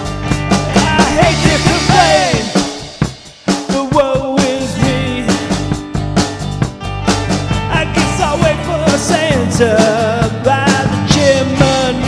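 Rock band music with a drum kit keeping a steady beat under a bending lead melody. The band drops out briefly about three seconds in and then comes back in.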